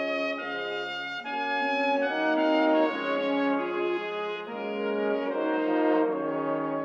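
Background music played on brass instruments: several notes held together as slow chords that change about once a second.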